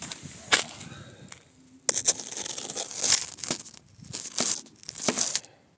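Crunching and scraping of crusted snow and ice right against a phone's microphone, in irregular bursts with sharp crackles, as the phone is handled and set down on the ice.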